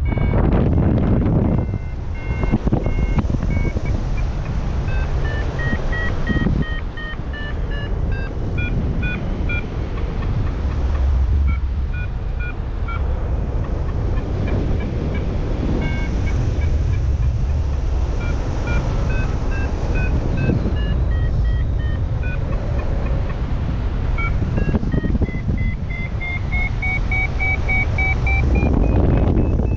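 XC Tracer Maxx variometer beeping in a fast string of short tones whose pitch wanders up and down and rises near the end: the climb tone of a paraglider in lift. Behind it is steady wind rushing on the microphone.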